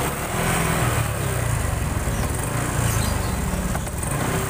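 Honda Supra X 125 FI's single-cylinder four-stroke engine idling unevenly, sputtering and stumbling, a limping beat. It is a fault that a spark-plug check and an ECU reset have not cured.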